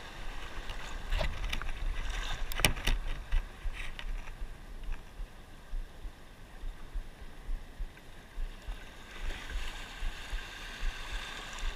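Small waves washing and splashing over a shallow reef flat, with a low rumble of wind on the microphone. A few short, sharp clicks sound about one to three seconds in.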